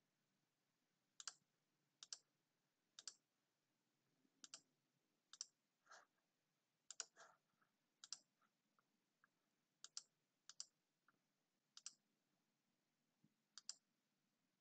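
Computer mouse clicking: about a dozen faint, sharp clicks, many in quick pairs, spaced roughly a second apart.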